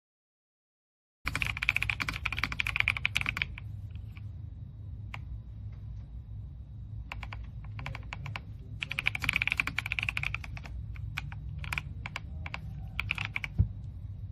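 Typing on a mechanical keyboard: fast runs of keystrokes, with scattered single key presses between them. One heavier thump comes near the end.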